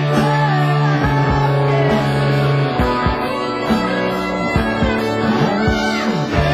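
Rock music with no singing: electric guitar playing over a sustained bass and band accompaniment.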